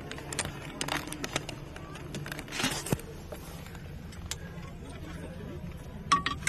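Scattered light knocks and clicks from someone moving about and handling gear inside a cramped metal vehicle compartment, over a low steady hum and faint background voices.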